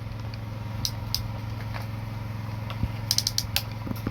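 Mini excavator's motor running with a steady hum, and short clicking rattles about a second in and again in a quick cluster around three seconds.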